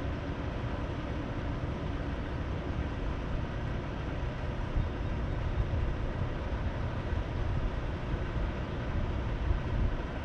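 Steady low outdoor rumble with no distinct events, growing a little gustier with irregular louder peaks in the second half.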